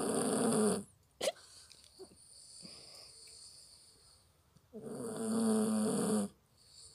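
A sleeping puppy snoring: two long, rasping snores about four seconds apart, with a short sharp sound about a second in. The owner puts the snoring down to a problem with its bronchi.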